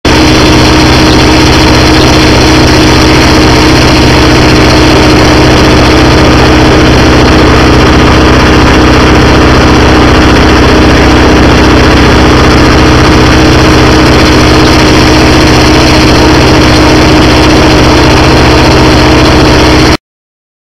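Mesquite mill running steadily at full loudness while grinding mesquite pods into flour, a constant loud machine drone with a steady hum, cutting off abruptly near the end.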